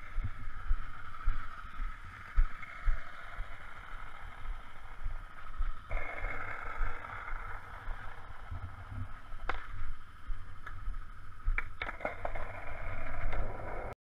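Skateboard wheels rolling over asphalt, with wind buffeting the camera microphone. A few sharp clicks come from the board hitting bumps in the road.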